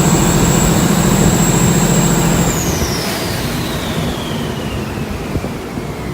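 Canal boat's diesel engine running hard with a steady high whine. About two and a half seconds in, the engine is throttled back: its deep note drops away and the whine slides steadily down in pitch as it winds down.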